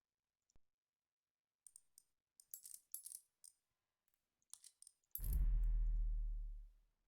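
Light metallic clicks and rattles, then a low electrical hum that starts suddenly about five seconds in and fades away over about two seconds.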